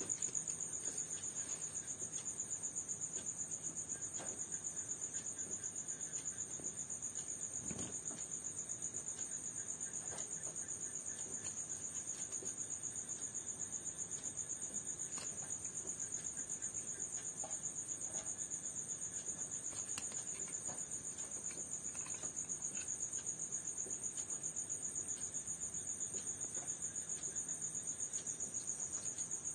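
Crickets trilling nonstop at a high pitch, two close pitches at once, with a few faint knocks and scrapes underneath.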